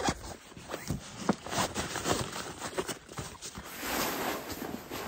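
Nylon compression stuff sack being handled: short clicks and scrapes as its straps are worked loose, then a steadier fabric rustle, about three and a half seconds in, as the sleeping bag is pulled out of it.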